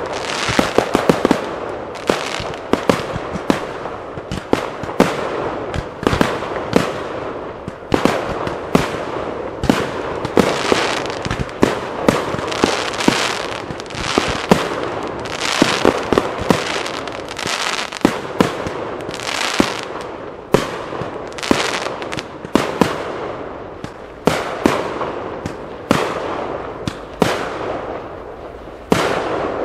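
Fireworks finale barrage: aerial shells bursting in rapid succession, with sharp bangs several a second over a continuous crackle, easing off a little near the end.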